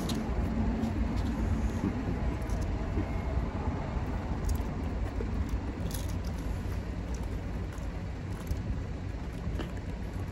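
Steady low rumble of road traffic, with a few short clicks scattered through it.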